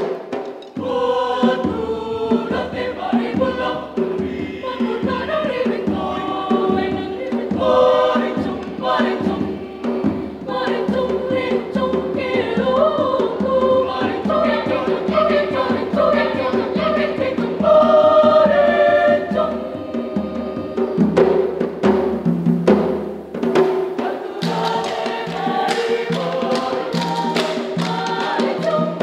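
Choir singing a traditional Makassar song in several parts, with drums beating underneath. Near the end the drumming drops away and sharp wooden clacks come in under the voices.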